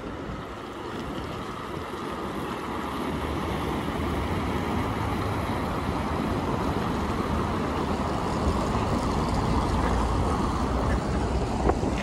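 City street noise heard while walking: a steady rushing sound with a low rumble that builds up and is loudest near the end, then one short sharp knock just before it ends.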